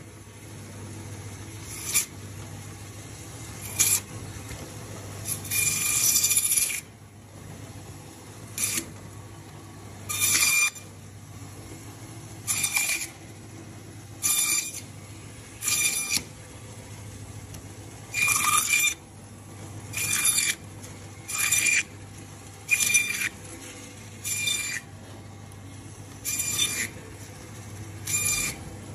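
Fish bandsaw running with a steady hum while its blade cuts a red snapper into steaks through the backbone: a short burst of rasping noise with each pass, about sixteen cuts one to two seconds apart.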